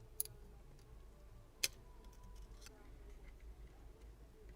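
Small sharp clicks as tools pry small components off a phone's frame: two distinct clicks about a second and a half apart, with a few fainter ticks after them.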